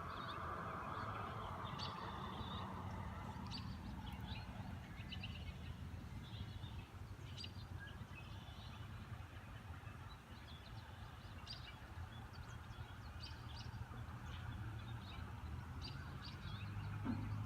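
Small birds chirping in short, scattered calls over a steady low rumble that grows slightly louder near the end.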